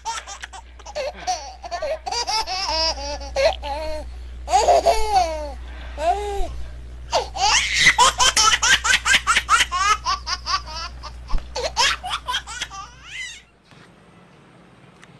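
People laughing in long, rapid fits that stop shortly before the end.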